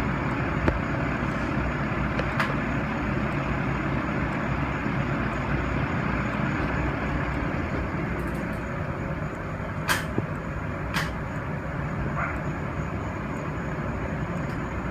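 Electric fan running steadily with a low hum, with two sharp clicks about ten and eleven seconds in.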